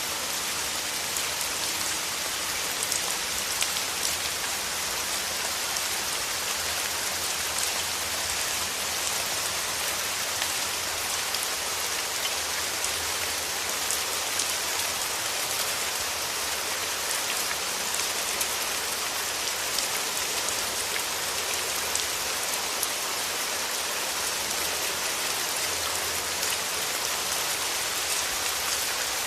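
Steady rain falling, with a dense patter of drops striking a surface.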